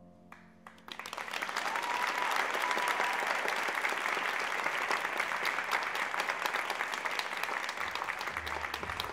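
Audience applause. It builds up about a second in and then holds as steady, dense clapping.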